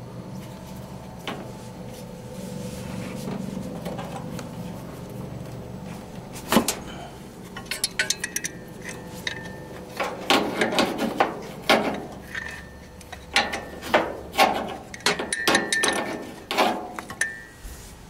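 Adjustable steel wrench clinking and knocking against a pipe fitting at the base of a Hitachi air-conditioner compressor as the fitting is worked loose: a run of sharp metallic clicks and clanks, some ringing briefly, starting about six seconds in over a low steady hum.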